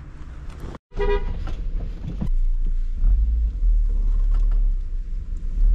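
A car running on the road, heard as a steady low rumble that grows louder partway through, with a short horn toot about a second in.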